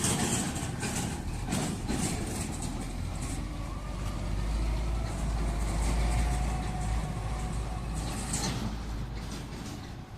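Combine harvester's diesel engine running, with a deep rumble that grows louder through the middle. Short rushing noises come and go over it.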